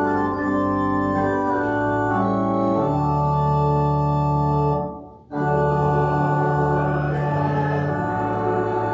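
Church organ playing slow, sustained chords. One phrase ends about five seconds in, and after a brief gap the next phrase begins.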